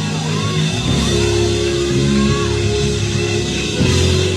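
Live gospel band playing a sustained instrumental passage with bass and held keyboard-style chords, the harmony changing about a second in and again near the end.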